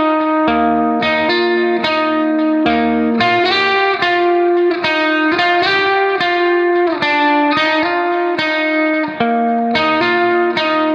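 Instrumental background music: a melody of plucked notes at a steady pace over a bass line.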